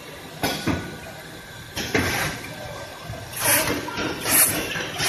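Toilet-paper production-line machinery running, with short hissing bursts that become regular, about one every 0.8 seconds, in the second half.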